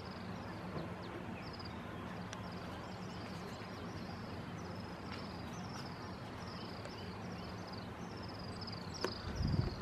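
Outdoor wildlife ambience: a high, falling chirp repeated about twice a second from a calling bird or insect, over a low steady hum. A click and a short low thump come near the end.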